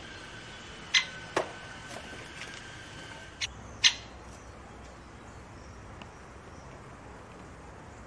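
Great spotted woodpecker at a hanging seed feeder: four sharp ticks in two close pairs within the first four seconds. A faint steady high tone runs beneath and stops a little after three seconds in.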